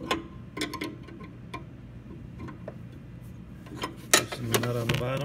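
Steel open-end wrenches clicking and clinking against a brass valve fitting and against each other while its nut is loosened. The sharp metallic ticks come at irregular moments, with a louder clank about four seconds in.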